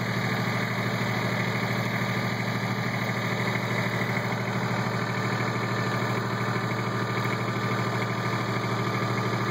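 Kubota B1700 HSD tractor's small three-cylinder diesel engine running steadily, heard from inside the closed cab.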